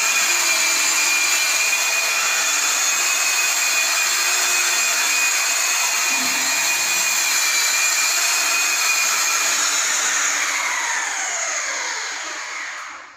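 Handheld electric polisher with a buffing pad running at steady speed, a high motor whine, while polishing a red oxide cement floor. Near the end it is switched off and winds down, its pitch falling until it stops.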